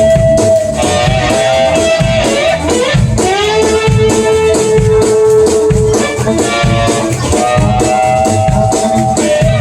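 Country band playing an instrumental passage: a lead instrument holds long notes that slide up into pitch, over guitar and a steady drum beat.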